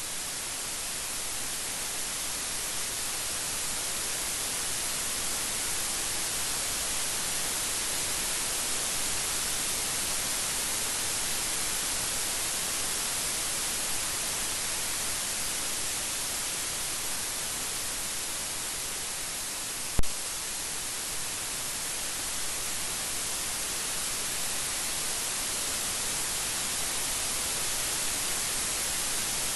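Steady rain, an even hiss with no thunder, broken by one sharp click about two-thirds of the way through.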